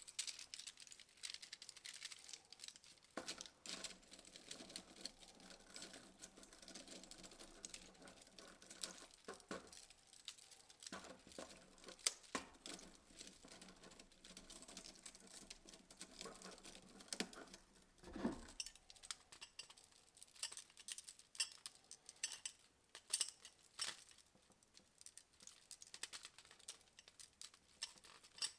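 Small 3D-printed plastic parts of a Hoberman sphere clicking, tapping and rattling against each other as the last piece is fitted by hand: many faint scattered clicks.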